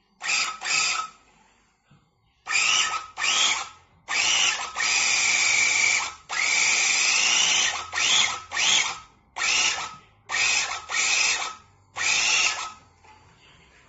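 Electric handheld rug-tufting gun running in repeated short bursts as the trigger is pressed and released, a motor whine that climbs in pitch as it spins up each time. Two longer runs of about two seconds come in the middle.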